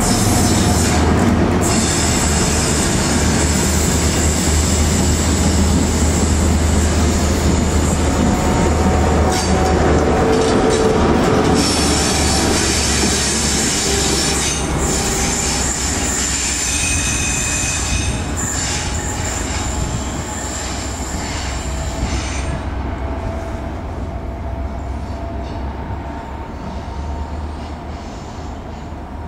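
Class 43 HST diesel power cars running past on station track: a steady low engine drone under high, thin wheel squeal from the curved track. The squeal is strongest around the middle, and the whole sound gradually gets quieter toward the end.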